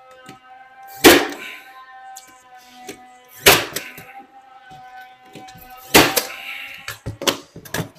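Pneumatic pin nailer firing brads into baseboard trim: three loud sharp shots about two and a half seconds apart, then a few lighter ones near the end, over background music.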